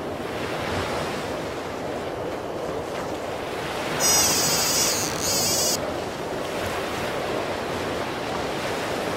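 Surf breaking on a sandy beach, with wind buffeting the microphone. About four seconds in, a loud, high-pitched rippling buzz lasts nearly two seconds, starting and stopping abruptly.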